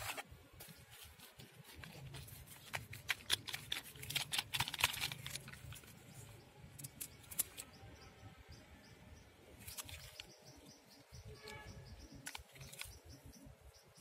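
Plastic toy trucks being handled in damp soil: gritty scraping and crunching with irregular clicks and plastic clacks, busiest in the first half.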